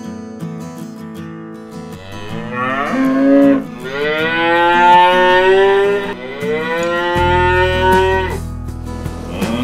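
Cattle mooing: three long moos in a row, the first starting about three seconds in, each rising in pitch and then held, over quiet acoustic guitar music.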